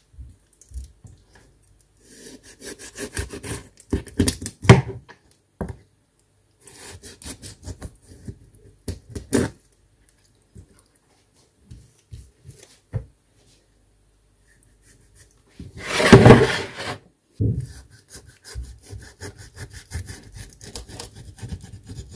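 Kitchen knife cutting through a perch's bony, spiny fins and skin on a wooden cutting board: quick rasping, sawing strokes in several bursts, the loudest about sixteen seconds in.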